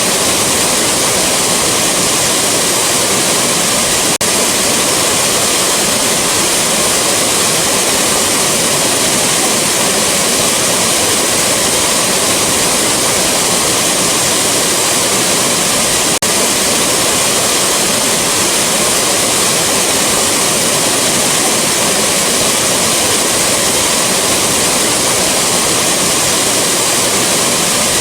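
Rushing waterfall: a steady, loud roar of falling water that holds at an even level.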